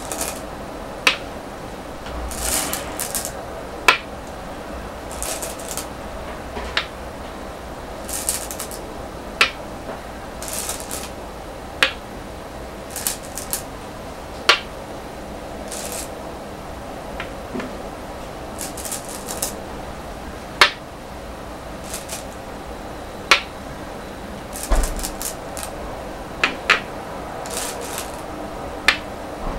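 Go stones being placed one at a time on a wooden go board, each landing with a sharp click, about a dozen at uneven intervals. Between the clicks come short rattles of stones being picked from the bowl.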